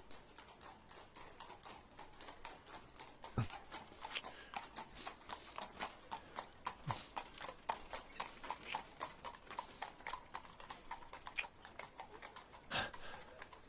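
Horse hooves clip-clopping on cobblestones, many uneven hoof strikes several times a second, with one short louder noise near the end.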